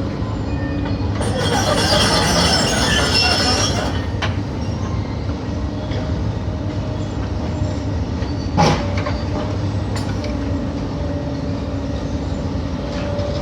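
A demolition machine's engine running steadily while it drags and lifts scrap metal. There is a loud screeching scrape of metal on metal from about one to four seconds in, and a sharp metallic clank later on.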